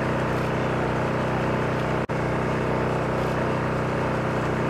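A steady low mechanical hum, unchanging in pitch, like a motor running. It cuts out for an instant about two seconds in.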